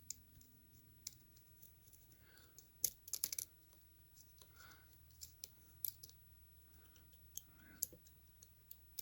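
A lock pick clicking against the pins inside a Yale pin-tumbler lock fitted with security pins, as the pins are lifted one at a time under tension. Faint, scattered clicks, with a quick run of them about three seconds in.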